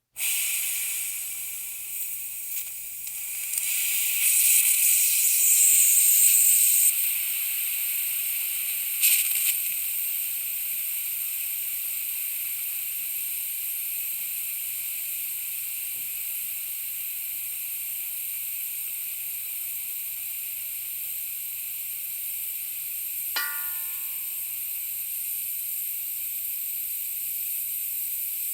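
Air leaking with a steady high hiss that starts abruptly and swells louder a few seconds in, with a brief sharp spurt about nine seconds in. A short squeak is heard about three quarters of the way through.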